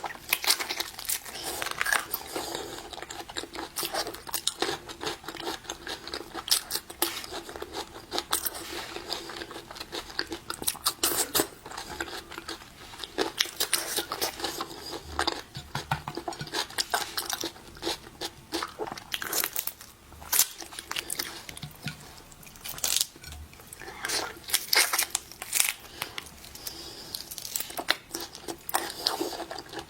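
Close-miked eating of seafood: continual crunching, biting and chewing, with many sharp, irregular cracks and crinkles.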